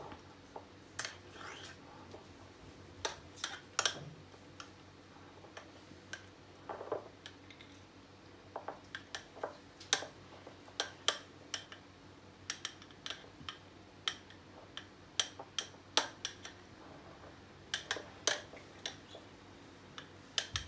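A metal spoon clinks and taps on a ceramic bowl and a glass in irregular sharp clicks as thick whipped coffee foam is scooped out and spooned onto the glass.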